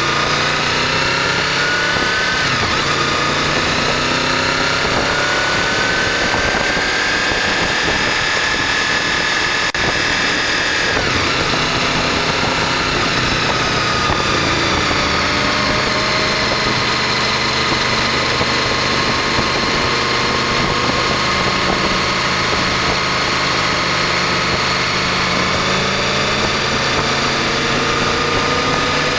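Honda VFR800's V4 engine running under way, its pitch rising and falling slowly with the throttle, over a steady rush of wind and road noise.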